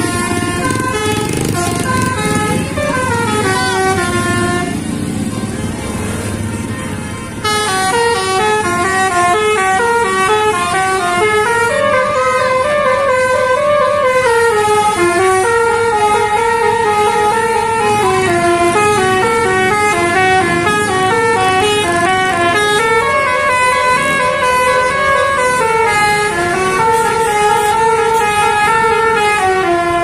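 Basuri multi-trumpet musical air horn on a tour bus playing a continuous telolet melody of stepped notes rising and falling, over the low rumble of the bus. About seven seconds in, the sound cuts abruptly to a louder, busier run of notes.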